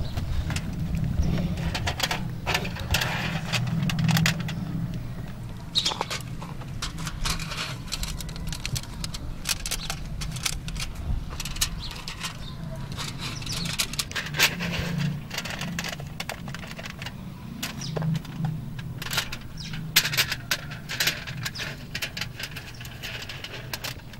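Thin aluminium foil trays being handled and set into dry soil: scattered clicks and crinkles at irregular intervals, over a low steady rumble.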